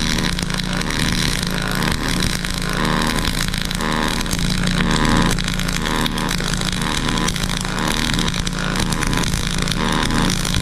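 MIG welding arc from a YesWelder DP200 with pulse mode on: a steady, loud crackle with a low buzz under it, running unbroken while the bead is laid. This pulse setting throws lots of spatter.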